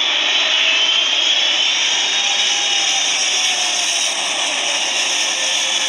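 Boeing 777's jet engines passing overhead: a loud, steady rush with a whine that slowly falls in pitch.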